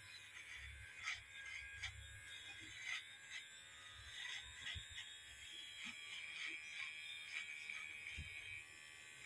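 Boxin cordless hair clipper running faintly as it trims chin stubble, with scattered small ticks as the blade moves over the hair.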